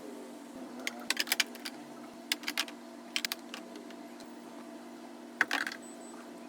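Light plastic clicks and knocks of food containers and bottles being set onto refrigerator shelves, coming in a few short clusters over a steady low hum.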